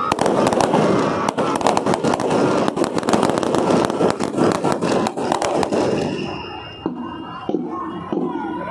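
A line of police rifles firing a feu de joie, the celebratory running fire: a rapid ripple of shots crackling down the line, dense for about six seconds, then thinning to scattered shots near the end.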